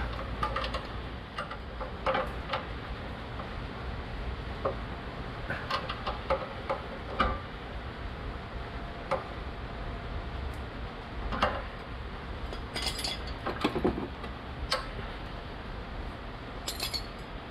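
Hand tools clinking on the steel exhaust while the bolts at the muffler-to-downpipe flange are tightened to crush the gasket: scattered sharp metallic clinks and ticks a second or two apart, with short runs of quick clicks about 13 and 17 seconds in.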